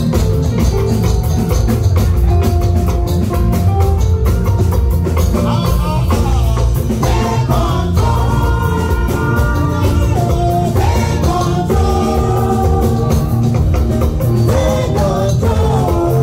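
Loud, upbeat gospel music with a steady, busy drum beat and heavy bass; from about halfway in, a voice sings a melody over it through a microphone.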